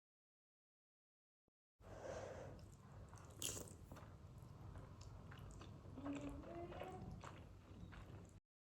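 Close-miked chewing and biting of food, with one sharp crunch about three and a half seconds in. The chewing starts abruptly after about two seconds of dead silence and cuts off just before the end.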